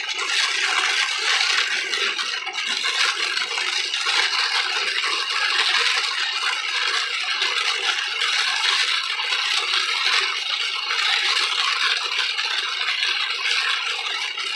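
Heavy rain pelting the car's roof and windshield, heard from inside the car as a steady dense crackling patter.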